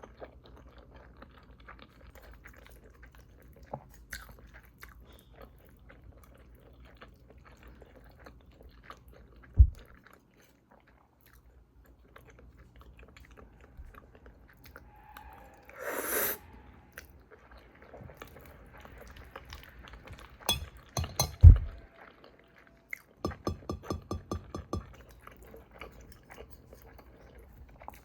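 A person eating, with chewing and scattered small clicks and knocks. There are two sharp thumps, about ten seconds in and near 21 seconds, and a quick rhythmic run of chews a few seconds before the end.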